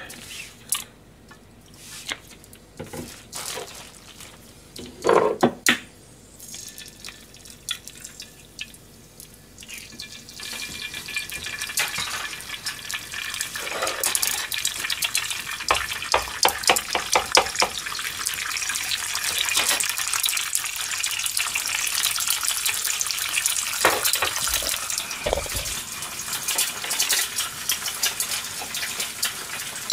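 Egg frying in a hot frying pan: a few clicks and knocks, then a dense, steady crackling sizzle that starts about a third of the way in and keeps going.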